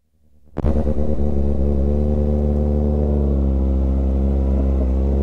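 Kawasaki Ninja ZX-6R sportbike's inline-four engine running at a nearly steady pitch as the bike rides along. It starts abruptly about half a second in, and its pitch dips slightly partway through.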